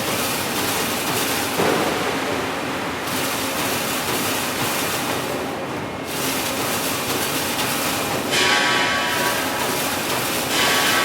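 Iron factory ambience: a dense, steady din of machinery noise. A metallic ringing screech comes about eight seconds in and again near the end.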